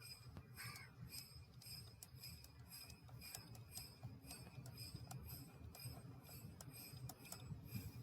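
Near silence, with faint, regular ticking a few times a second over a low background hum.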